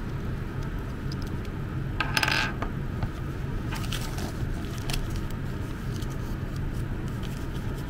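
Small clicks and a brief scrape from handling a USB soldering iron's little metal tip, as the tip is pulled off and a spare is taken from a small plastic bag. The scrape comes about two seconds in, and a few light clicks follow. A steady low hum sits underneath throughout.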